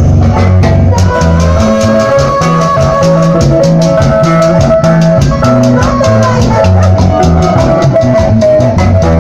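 Loud live band music: a steady drum beat over a repeating bass line, with long held melody notes on top.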